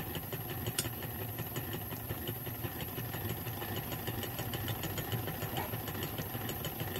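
Vintage hand-crank New Home Improved Home Companion sewing machine being cranked steadily to wind a bobbin: the mechanism runs with a steady whir and fast, even ticking as the bobbin winder spins against the handwheel.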